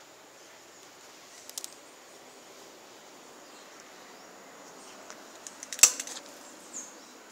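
Faint steady hiss with a few sharp clicks: a short cluster about a second and a half in, and one much louder click about six seconds in with smaller ones around it.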